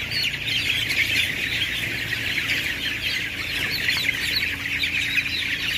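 Dense, continuous chorus of peeping from a crowded flock of 16-day-old broiler chickens, many short overlapping calls at once, over a low steady hum.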